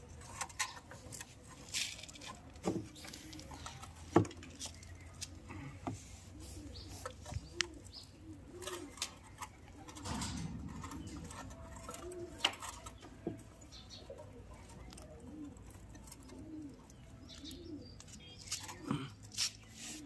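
A pigeon cooing over and over, a low arching call repeated many times. Over it come a few sharp metallic clicks and knocks from the motorcycle's front sprocket and sprocket cover being handled and fitted by hand; the loudest is about four seconds in.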